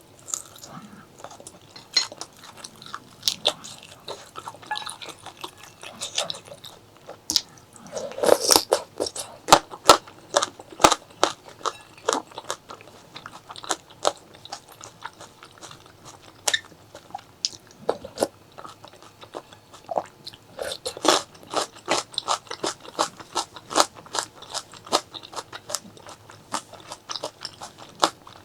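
Close-miked eating: crunchy biting and chewing with many sharp, irregular crackles, busiest about a third of the way in and again past the middle.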